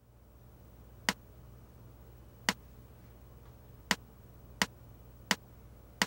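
Six sharp clicks counting in the tune, two slow then four twice as fast, over a faint low steady hum.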